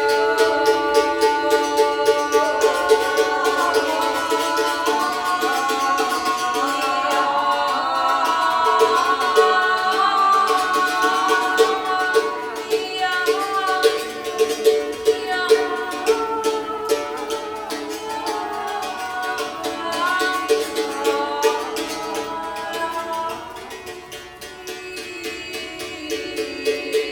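Improvised acoustic music: plucked strings over a steady pulsing drone, with a gliding melody line above. The playing thins out and gets quieter about 23 seconds in, then builds again near the end.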